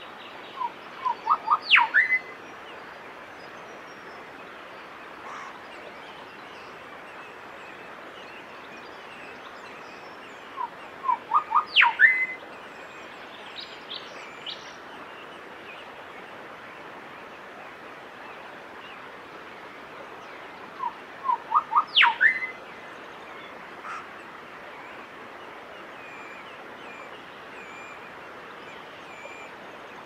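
Grey shrike-thrush singing the same phrase three times, about ten seconds apart: a quick run of five or six short notes rising in pitch, ending in a loud upward-sweeping whistle. A steady faint hiss lies under the song.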